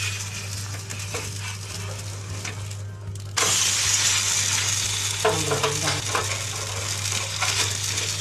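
Besan-coated paratha frying in ghee on a hot tawa, a steady sizzle that suddenly gets louder about three seconds in, once the batter side is down and the spatula is pressing it onto the griddle. A steady low hum runs underneath.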